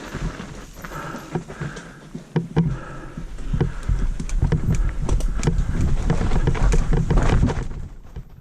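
Mountain bike riding down a wet, rooty trail, heard from a camera on the rider: rapid rattling clicks and knocks from the bike over roots with a low rumble underneath, getting louder about halfway through and cutting off suddenly at the end.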